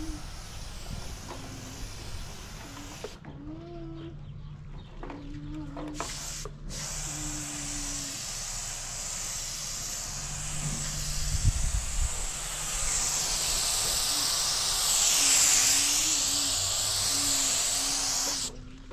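Air-fed paint spray gun hissing as it sprays, the trigger let go briefly about three seconds in and again about six seconds in, then released just before the end. A faint low hum comes and goes underneath.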